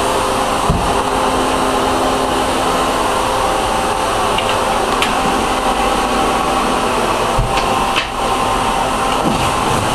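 A steady mechanical drone: an even airy rush with a hum over it, and a few light knocks.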